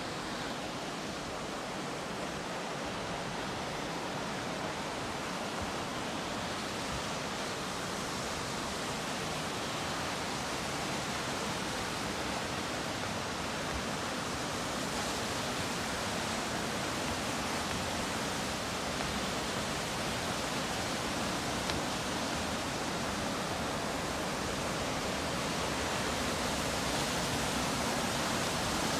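Waterfall rushing over rocks, a steady noise that grows gradually louder toward the end.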